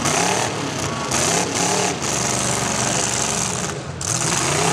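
Several demolition derby cars' engines running and revving together through short upright exhaust pipes, the pitch rising and falling as drivers blip the throttle.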